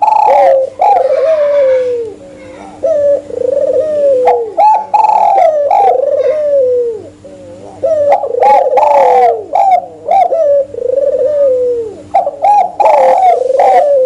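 Spotted dove and albino Barbary dove cooing over and over, their repeated coo phrases overlapping and running close together.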